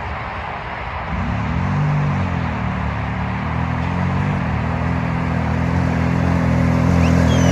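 ATV engine running, revving up and back down twice in the first half, then holding a steady speed, with road or wind noise throughout.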